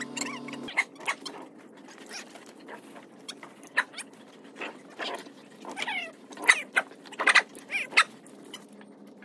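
A dog whining: many short, high-pitched cries and squeaks, coming thick and loudest a little past halfway.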